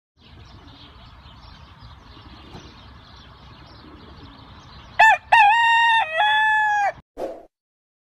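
Rooster crowing once, a loud cock-a-doodle-doo in four joined parts starting about five seconds in, over a faint background hiss. It cuts off sharply, followed by one short, lower sound.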